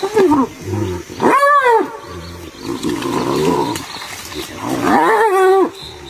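Spotted hyenas fighting and calling: loud, pitched calls that rise and then fall in pitch, three in all, the strongest about a second and a half in and about five seconds in, with a rougher, lower sound between them.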